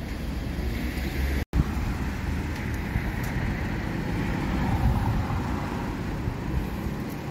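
Steady street ambience: a low rumble of road traffic, with a brief dropout about a second and a half in.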